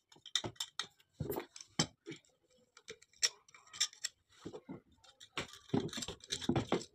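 Irregular metallic clicks and scrapes as a steel wire is poked into a scale-blocked hole in an electric water heater's heating-element flange to clear it.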